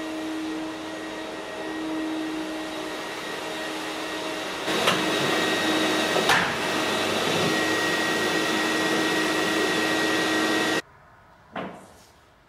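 Loud, steady machine-like hiss and hum, with a sharp crack about five seconds in and a louder one just after six seconds, the second fitting a cricket bat striking the ball. The hiss cuts off abruptly near the end, and a fainter crack follows.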